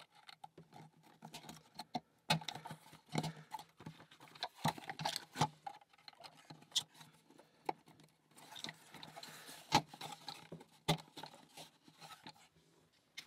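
Thin laser-cut plywood parts of a wooden mechanical puzzle clicking, knocking and rubbing as they are handled and pushed into place, in irregular small knocks with some louder clacks.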